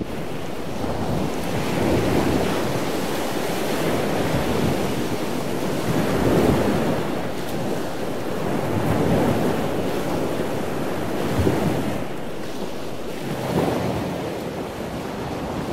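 Ocean surf washing in on a beach, swelling and easing every few seconds, with wind buffeting the microphone.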